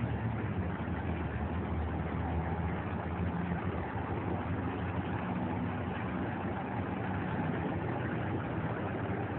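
Steady low rumble of city traffic and engines, even and unbroken, picked up on a mobile phone's microphone.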